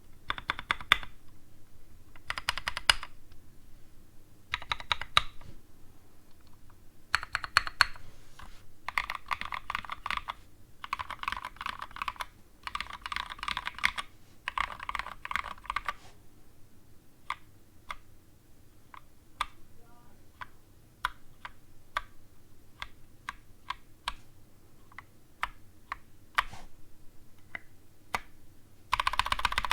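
Mechanical keyboard typing on a KBD Tofu with a brass plate, lubed and filmed NovelKeys Cream linear switches and SA keycaps. There are runs of fast typing for the first half, then single keystrokes about one or two a second, then a fast run again near the end.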